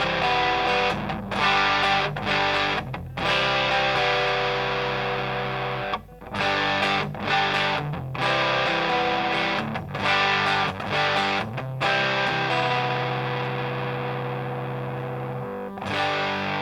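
Electric guitar played through a Grindcustoms Feng Drive overdrive pedal: overdriven chords and riffs cut off by several short, sudden stops. Near the end one chord is held and left to fade before the next is struck.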